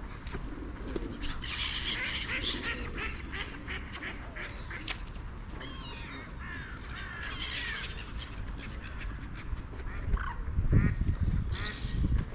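Park birds calling: ducks quacking and geese honking among small birds chirping. A louder low rumble comes near the end.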